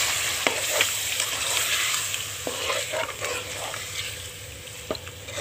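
Chicken frying in oil and masala in a metal pot, sizzling as a spoon stirs it, with the spoon clicking against the pot a few times. The sizzle slowly dies down.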